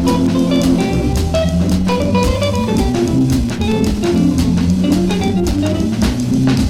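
Small-group jazz playing an instrumental break, with guitar and drums over a walking bass line and no singing.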